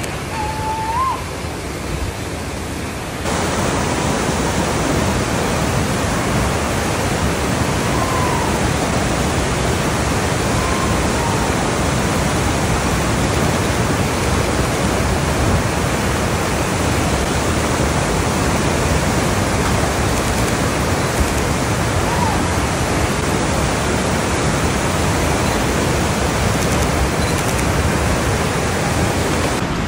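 Whitewater of a steep boulder-strewn creek rushing steadily; it jumps louder about three seconds in.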